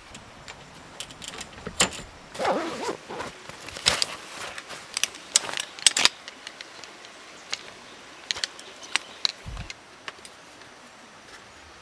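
Small hard objects being handled: a run of sharp clicks and clinks with some scraping in the first half, then a single dull thump about nine and a half seconds in.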